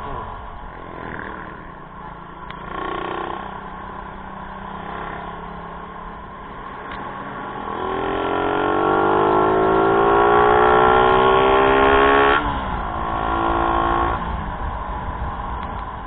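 A motor vehicle engine accelerating, its pitch rising steadily for about four seconds. It then drops abruptly, as at a gear change, and runs steadily at a lower pitch for a couple of seconds.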